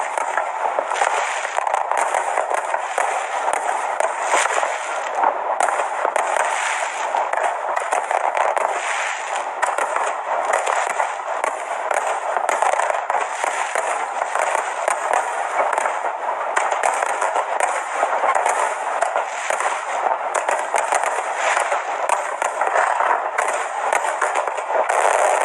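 Fireworks display: dense, unbroken crackling and popping of bursting shells, with no pause.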